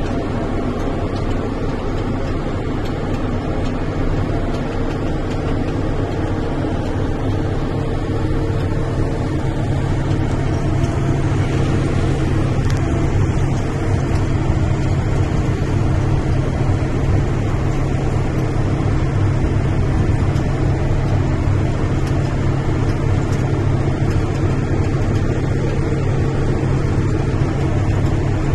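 Large farm tractor's engine running steadily under load, heard from inside the cab as a constant low drone, a little louder from about twelve seconds in.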